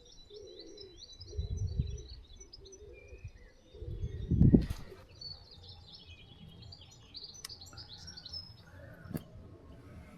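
Small birds chirping and singing, with low muffled rumbles around two and four and a half seconds in, the second the loudest.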